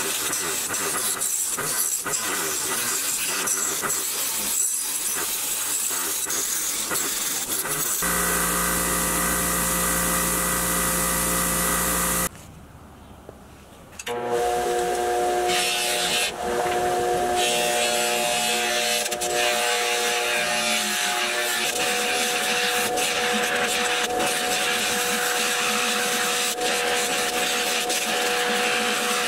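Bench grinder with a wire wheel scratching rust and old paint off a small pressed-steel toy truck part. Partway through, after a brief quieter drop, a cloth buffing wheel on the grinder runs with a steady hum as the part is pressed against it for polishing.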